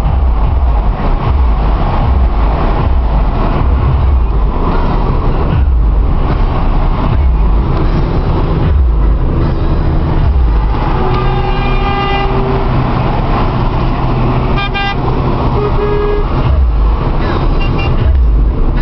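Steady road and engine noise inside a moving car, with car horns sounding over it: one long toot about eleven seconds in, then several short toots.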